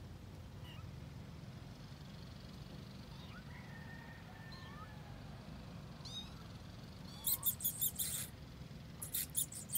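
High-pitched animal calls: a few faint squeaks in the first half, then two bursts of rapid chirping, about five or six a second, over a low steady hum.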